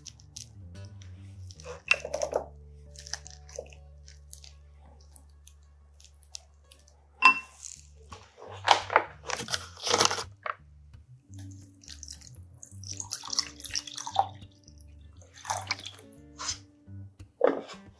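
Cooked rice scooped from a stainless pot into a glass bowl with a wooden paddle: scattered scrapes and taps, with one sharp clink about seven seconds in. A plastic water bottle is handled near the end, all over background music with a low bass line.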